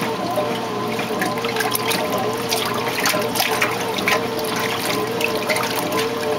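1968 Kenmore 900 Series top-loading washer agitating a load: water sloshing and splashing in the tub over the steady hum of the motor and drive, with a tone that wobbles up and down in an even rhythm.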